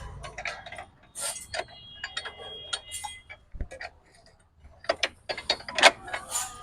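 Metal hand tools clicking and clinking against motorcycle parts: a run of irregular sharp clicks, some with a brief metallic ring, with ratchet-like clicking.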